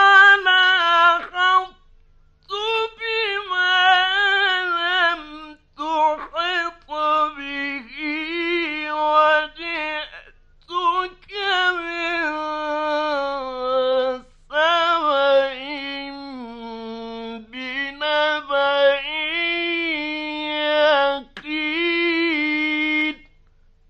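A man reciting the Quran in the melodic mujawwad style: long, ornamented phrases with sliding pitch, broken by short breath pauses. Midway one long phrase sinks to a low held note and climbs again, and the voice stops just before the end.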